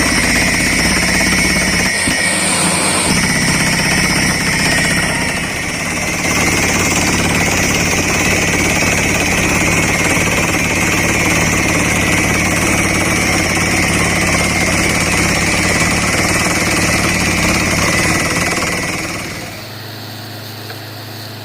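Borewell drilling rig's compressed-air hammer drilling, loud and steady with a high whine over a low engine hum. About two seconds before the end the hammering stops, leaving the rig's engine running at a lower level.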